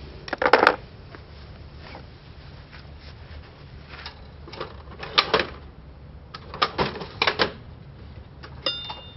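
Metal hand tools clinking and clanking in several short bursts, with a brief metallic ring near the end, as wrenches and sockets are handled during rear axle work on the motorcycle.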